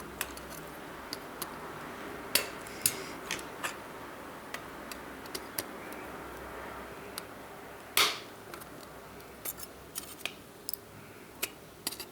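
Small tool clicking and tapping against a smartwatch's small plastic and metal parts as its circuit board is worked loose from the frame: scattered light clicks, with one louder, longer scrape about eight seconds in.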